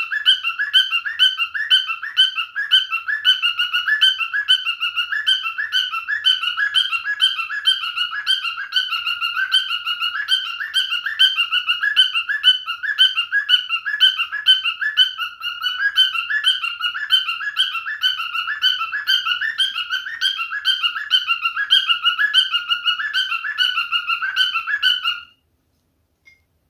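Male cockatiel whistling and chirping a rapid, repetitive run of short pitched notes, which cuts off abruptly near the end.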